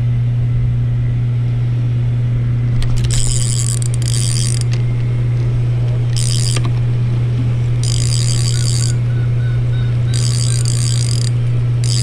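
Spinning reel's front drag knob being turned to loosen the drag, giving short runs of ratcheting clicks, five in all, under a steady low hum.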